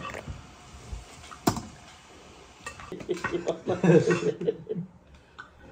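Dishes and cooking utensils clinking and knocking, with a few sharp knocks and a brief voice-like murmur in the middle.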